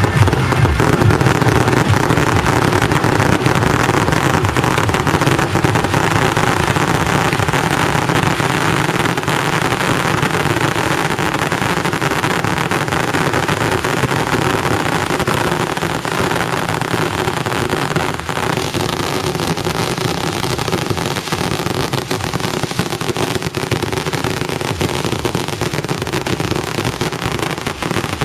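A dense, unbroken barrage of fireworks and firecrackers crackling loudly, easing a little in loudness toward the end.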